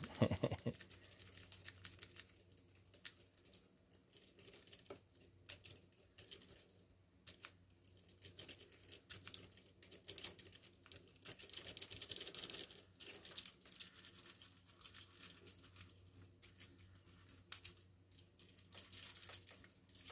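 Lock-pick rake scrubbing across the pin tumblers of a small padlock held under a tension wrench: faint, quick, irregular metallic clicking and scratching that comes in runs.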